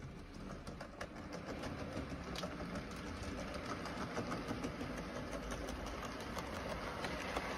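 Model railway freight train, a black model tank locomotive pulling a tank wagon and coal wagons, running along the track: a small electric motor hum with irregular clicking from the wheels on the rails, getting louder as the train approaches.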